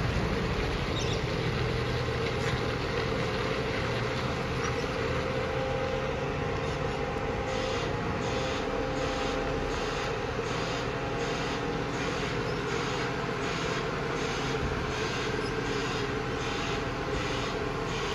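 Garbage truck's diesel engine running steadily as it manoeuvres. From about seven and a half seconds in, the truck's reversing alarm sounds as a hissing pulse about one and a half times a second.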